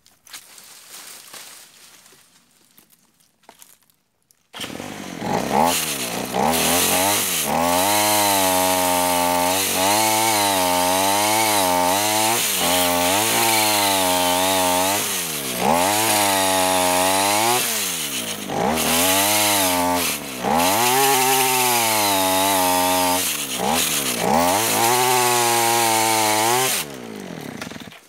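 Small two-stroke brushcutter engine driving a homemade chainsaw attachment, starting abruptly about four and a half seconds in and running at high revs. Its pitch dips and recovers again and again as the throttle is worked. It drops away shortly before the end.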